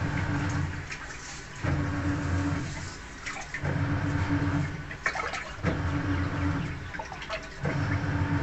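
Samsung Wobble top-loading washing machine agitating a full tub of water during the rinse stage of an Eco Tub Clean: the motor hums in spells of about a second and a half, returning about every two seconds as the pulsator swings the water back and forth, with water swishing throughout.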